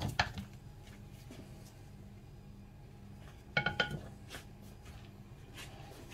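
Quiet kitchen room tone with a steady low hum, and a brief clinking of kitchenware a little past halfway through.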